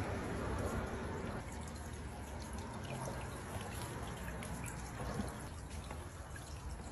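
Faint trickling and dripping water over a low steady hum, with scattered light ticks.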